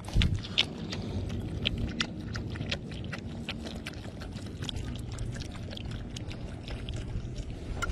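Small dog lapping water from a cupped hand: irregular wet clicks, a few a second, as water trickles into the hand from a plastic bottle, over a steady low rumble.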